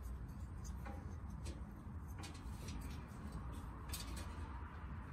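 Faint scattered clicks and taps of a plastic electronic igniter module and its wires being handled and slotted into a gas grill's metal cookbox, over a steady low background hum.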